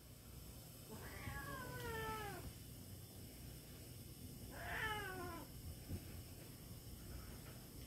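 A domestic cat meowing twice, each meow a drawn-out call falling in pitch, the first about a second in and the second around the middle.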